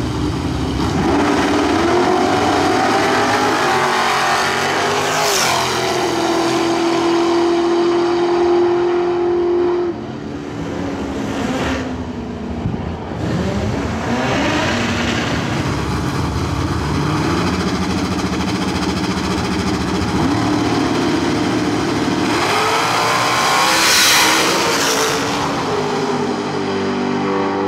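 Drag racing cars running at full throttle down the strip, engine pitch climbing in steps, with loud pass-bys about five seconds in and near the end.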